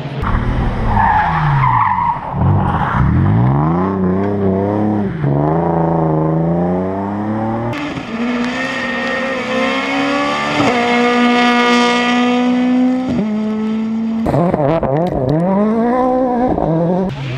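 Rally car engines revving hard on a stage, the pitch climbing and dropping again and again through gear changes, with a stretch held at high revs. The sound changes abruptly about 8 seconds in and again near 14 seconds, as if from one car to another.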